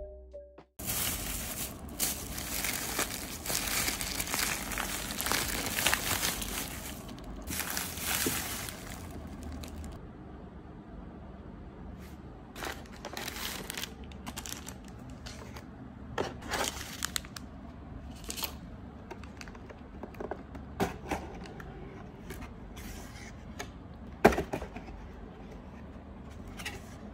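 A thin plastic delivery bag crinkling and rustling as it is handled for several seconds. Then quieter handling of cardboard pizza boxes, with scattered rustles, scrapes and taps and one sharp knock a few seconds before the end.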